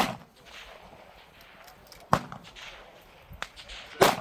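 Three long-range precision rifle shots about two seconds apart, each a sharp crack followed by a brief echo.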